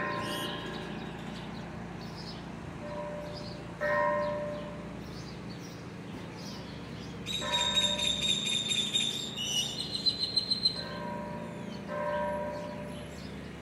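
A bell ringing in single strokes a few seconds apart, each fading away, with birds chirping quickly in the trees around the middle.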